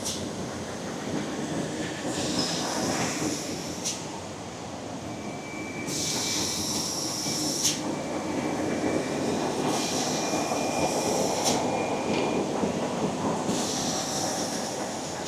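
Automatic rigid-box positioning machine running through its cycle: a steady mechanical drone, with a high hiss that comes back about every four seconds and ends each time in a sharp click.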